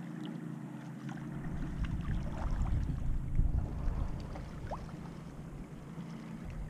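Boat motor running steadily, with a low rumble that builds about a second in and eases off after about four seconds.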